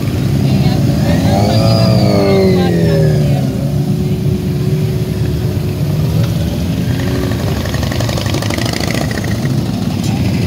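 Motorcycle engines running, with one revving up and back down from about one to three seconds in, then holding a steadier note.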